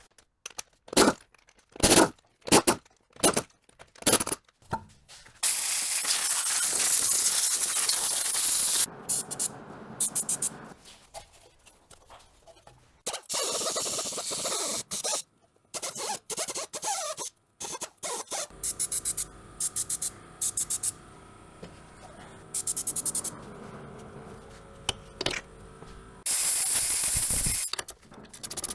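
Car repair workshop sounds: a run of sharp clicks and knocks, then several long bursts of hissing, scraping noise, with scattered clicks between them.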